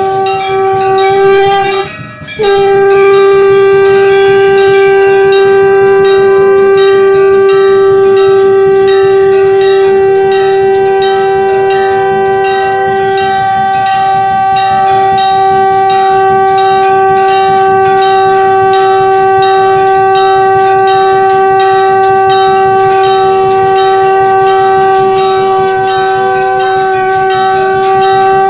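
Shankh (conch shell) blown in one long, steady blast that breaks briefly about two seconds in, then is held without a break. Temple bells ring rapidly behind it.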